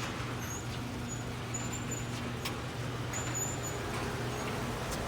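Garage door opener running with a steady low hum while the door travels, with short high squeaks and a few light clicks.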